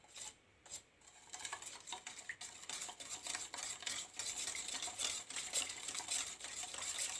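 A spoon stirring an oily homemade ointment mixture in its container, with quick small scrapes and clinks, after a few faint taps in the first second.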